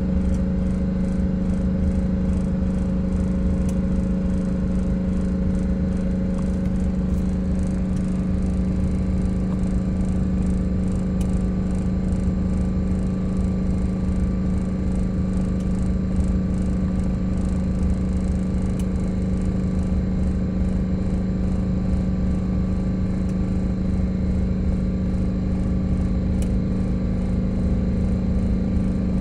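Bus engine running steadily, a constant hum with low rumble, driving the air compressor while the air tanks build pressure.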